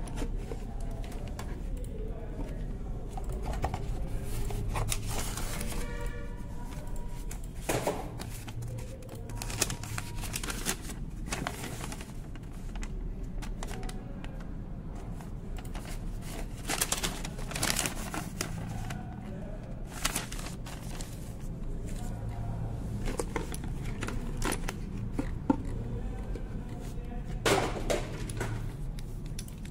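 Handling noises from unboxing a bicycle rear derailleur: cardboard packaging and a paper instruction leaflet rustling and crinkling, with scattered sharp clicks as the derailleur is handled, over a steady low hum.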